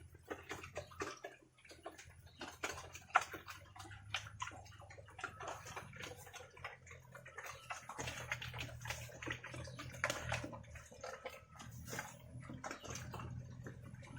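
Pigs eating wet feed: many quick, irregular smacks, slurps and wet clicks of chewing and lapping.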